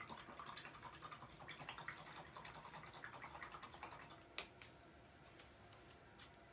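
Faint, quick scratchy tapping of a paintbrush for about four seconds, then a few sharp separate clicks.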